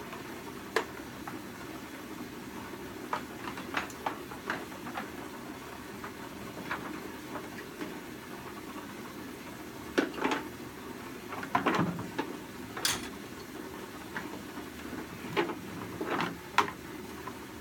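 Scattered clicks and metal knocks of a tie-down strap and its buckle being worked through a pressure washer's wheels and hooked onto an iron bracket, over a steady low hum. The knocks come in small clusters, the sharpest about thirteen seconds in.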